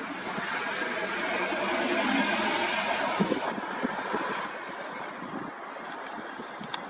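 A road vehicle passing by, its noise swelling to a peak about two seconds in and then fading away.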